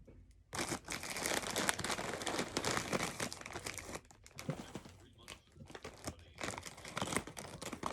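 Plastic snack bags crinkling and rustling as they are handled, in two long stretches with a quieter patch about halfway through.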